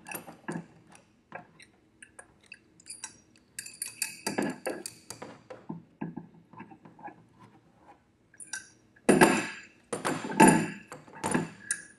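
Metal gas fittings and tools clinking and clattering as a two-piece tank connector is tightened into a gas regulator. Scattered light taps and clicks, with a louder run of clatter about nine to eleven seconds in.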